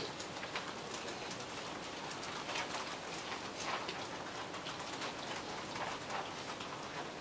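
Scattered clicking of several computer keyboards being typed on at irregular moments, over a steady room hum.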